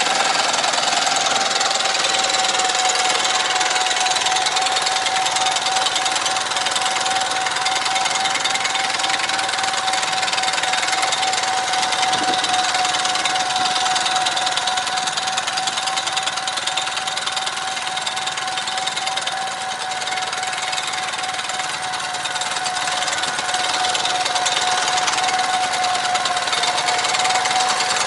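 Motor Sich walk-behind tractor's engine running steadily under load, pulling a shaker-type potato digger through the soil. It is a steady, even mechanical clatter with a constant high whine.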